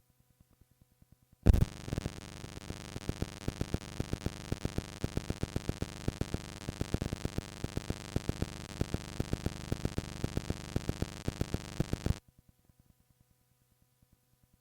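Playback of a found cassette tape: a loud recording with a fast, even pulse of about six beats a second and steady hum-like tones over tape hiss cuts in suddenly and stops just as abruptly about ten seconds later, as where the tape was switched into and out of record.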